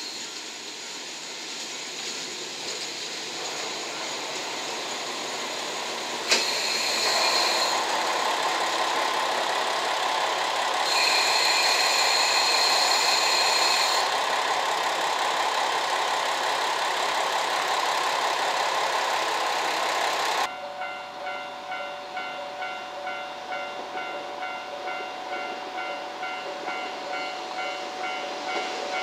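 KiHa 40 series diesel railcars running past at close range: engine and wheel noise building up, with two stretches of a high steady squeal from the running gear. After a sudden change about two-thirds of the way in, a level-crossing warning bell rings at about one and a half dings a second while a second diesel railcar approaches.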